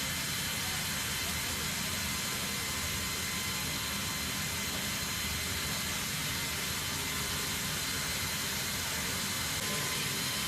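Steady jet aircraft engine noise: an even, unbroken rushing hiss with faint constant whines in it.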